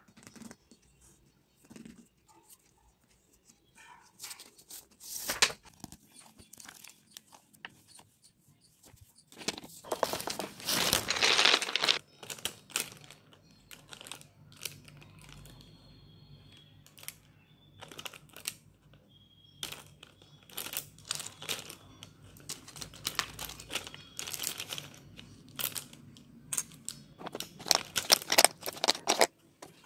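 Pens and pencils being handled: plastic pens clicking and clattering against each other in a pen cup, and pencils rattling in a plastic pencil box. The sound comes in irregular runs of clicks and rustling, loudest about ten seconds in and again near the end.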